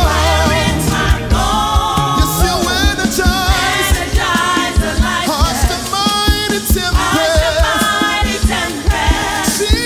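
Gospel worship song sung by a group of voices with a band behind them and a steady drum beat.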